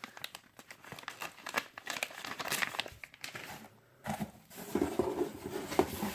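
Packaging crinkling and rustling as items are handled and rummaged through in an unboxed kit, with a short pause about four seconds in.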